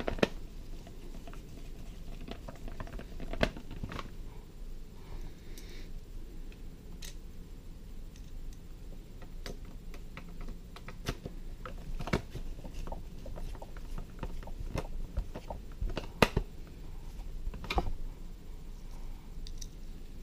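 A No. 2 Phillips screwdriver turned by hand, driving screws into the plastic casing of a mannequin's arm: irregular light clicks and scrapes, with a few sharper knocks.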